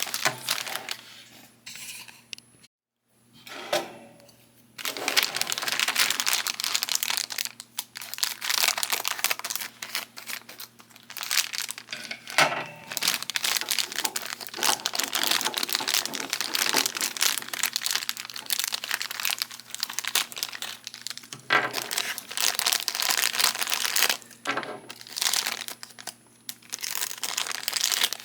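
Packaging crinkling and tearing as figure pieces are unwrapped by hand. It starts a few seconds in and runs in long stretches with brief pauses.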